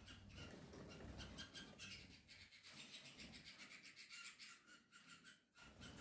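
Faint rustling and quick scratchy ticks from canaries shuffling about inside a clear plastic bath box, their feet and wings brushing the plastic. The sound is brief and irregular, dropping out briefly a little before the end.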